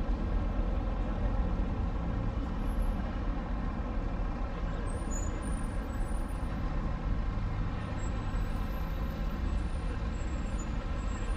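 Steady road traffic noise, a low rumble of heavy vehicle engines such as buses and lorries.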